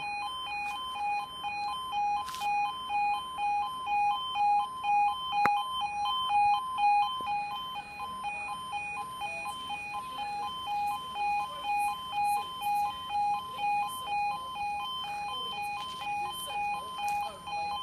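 Level crossing warning alarm sounding continuously, two tones alternating in a regular pulse about one and a half times a second: the crossing has been activated for an approaching train. A single sharp click about five and a half seconds in.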